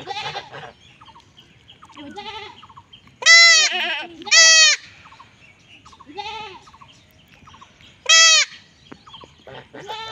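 Young goat kid bleating again and again in distress while held down for castration. Three of the cries are loud and last about half a second each, with fainter bleats between them.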